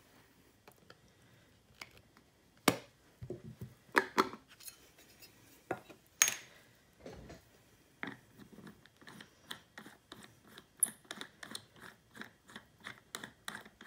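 A rubber rock-tumbler barrel being opened by hand: a few sharp clicks and knocks as its metal lid comes off, then a run of quick light clicks and scrapes, about four a second, while the inner lid is worked loose.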